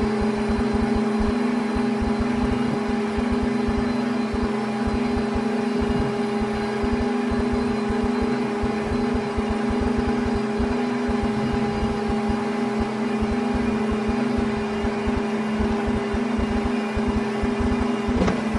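Tractor engine running at a steady speed with a constant hum while its hydraulics fold the planter's wings. Irregular low rumbles run underneath.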